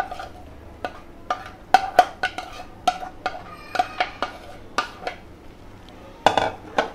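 A spatula knocking and scraping against a bowl and the rim of a steel pan as grated boiled egg is scraped into the pan: a quick, uneven series of sharp taps with a short ring. Near the end comes a longer, louder scrape as the egg is stirred into the masala.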